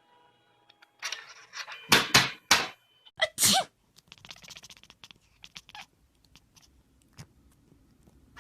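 A cat sneezing about five times in quick succession, short sharp sneezes bunched together in the middle, followed by faint rustling.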